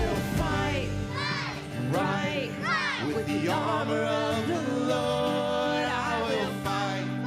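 Upbeat music with singing voices.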